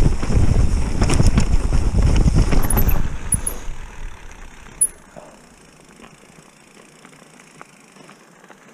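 Mountain bike clattering over rough, boggy, churned-up trail, with the GoPro rattling in its mount. The noise dies away after about three seconds to a faint hiss as the bike rolls smoothly along a snowy track.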